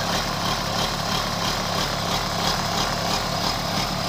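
A diesel engine running at a steady idle, an even drone that does not change.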